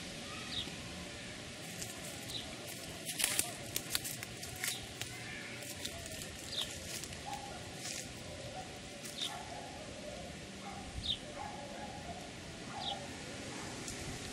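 Birds calling in steady outdoor background noise: a short, high chirp repeats every second or two, with fainter lower calls later on. A few sharp clicks come about three to four seconds in.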